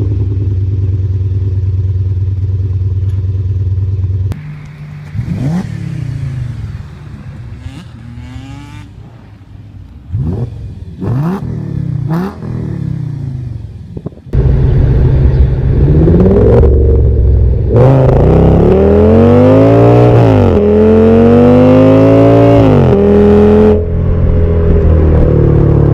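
Audi 5.2-litre V10 heard in several clips. First it runs steadily, then it is blipped in short revs that rise and fall in pitch. From about halfway through it is much louder, under hard acceleration, with the pitch climbing and then dropping several times.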